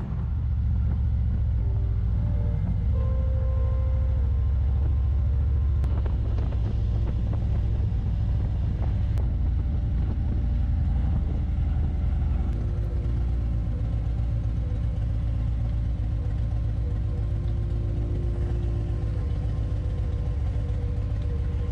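Harley-Davidson Road Glide Ultra's V-twin engine running steadily on the road, a continuous low rumble.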